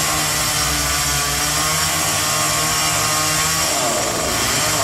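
Two-stroke chainsaw engine running with a steady note, which shifts and wavers about four seconds in.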